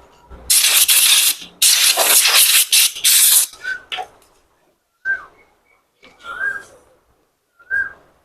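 Two loud bursts of pressurised hissing spray, the first about a second long and the second about two seconds, followed by a few short high whistled notes spaced a second or so apart.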